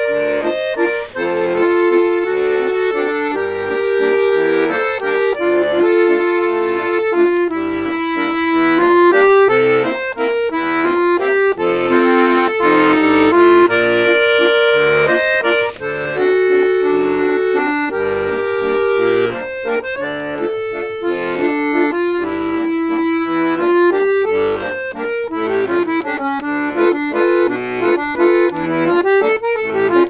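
Bayan (Russian button accordion) improvising: held chords under a moving melody line, breaking into shorter, quicker notes in the last few seconds.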